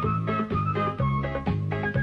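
Background music alone: a steady bass line in evenly repeated notes with short plucked notes above it.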